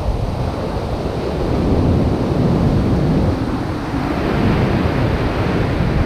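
Ocean surf breaking and washing up the sand, with steady wind noise on the microphone.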